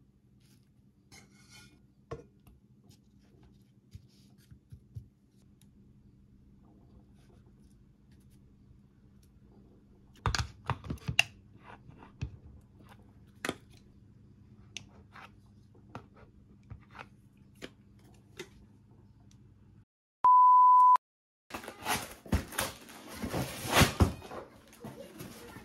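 Light taps and clicks of food being set down on a wooden plate, over a low steady hum. About twenty seconds in there is a single loud, steady electronic beep lasting under a second. Then comes a dense run of tearing and rustling as packing tape is pulled off a cardboard box and the box is opened.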